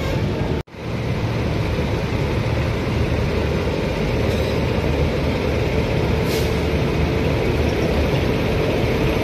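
Electric locomotive running close by with a steady, even hum of its machinery as it is brought up to the coaches for coupling. The sound drops out for an instant just after the start.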